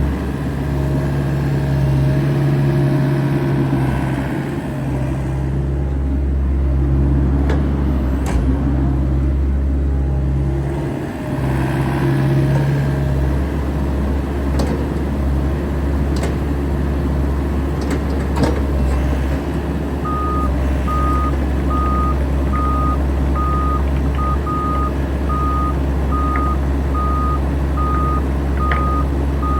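Bobcat E85 crawler excavator's diesel engine running steadily as the machine is operated, with a steady hum that drops out a little under halfway. From about two-thirds in, the excavator's travel alarm beeps evenly, about one and a half beeps a second, the sign that the machine is tracking.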